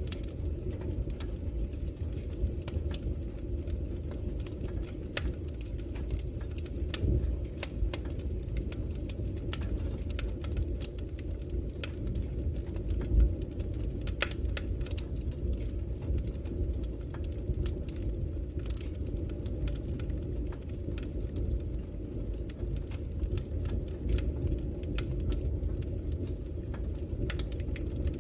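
Campfire burning: a steady low rush of flames with frequent small crackles and pops, and one louder pop about halfway through.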